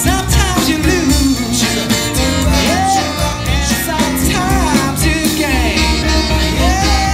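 A live band playing, with a man singing lead over drum kit and electric bass.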